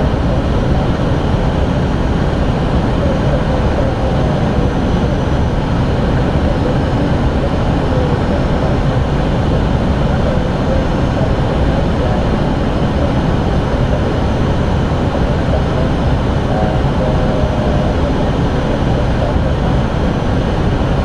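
Steady flight-deck noise of an Airbus A320 descending on approach: airflow and engine noise as an even, unbroken rumble, heaviest in the low range.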